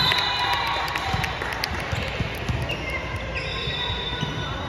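Basketball being dribbled and bouncing on the court during a game, a run of repeated thuds, with short high squeaks near the start and again about three and a half seconds in.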